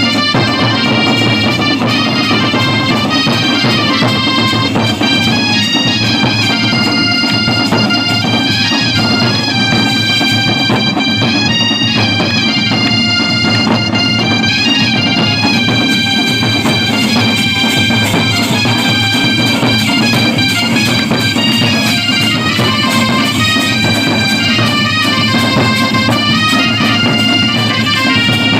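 Loud traditional folk music: a reedy wind instrument plays a continuous stepping melody over a steady low accompaniment.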